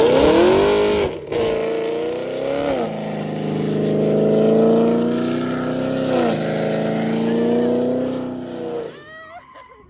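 Chevrolet Camaro SS 6.2-litre V8 through long-tube headers and a 3-inch X-pipe exhaust, accelerating hard. The engine note climbs and drops back at about three gear changes, then fades away near the end.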